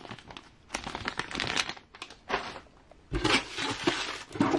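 Clear plastic parts bag crinkling as it is handled, then paper sheets rustling in a cardboard box, with irregular crackles and a soft thump about three seconds in.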